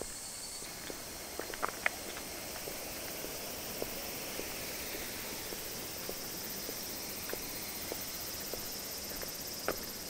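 Footsteps at a steady walking pace, about one every 0.6 seconds, with a few sharper clicks near the start, over a steady high-pitched drone of insects.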